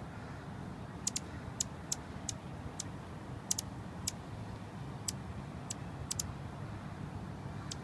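Anna's hummingbird giving sharp, high chip calls, irregularly about one or two a second, some in quick pairs, over a steady low rumble of traffic.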